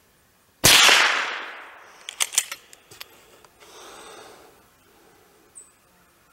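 A single .22 LR rimfire shot from an FN Browning Trombone pump-action rifle, its sharp crack fading over about a second. About a second and a half later comes a quick run of metallic clicks as the pump slide is worked to eject the case and chamber the next round, then one more click.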